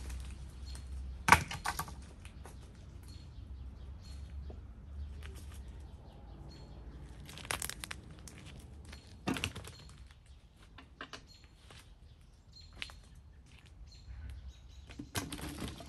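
Quince harvest sounds: rustling of dry fallen leaves and a few sharp knocks as fallen quinces are picked up and dropped into a bucket, the loudest knock about a second in. Small bird chirps now and then.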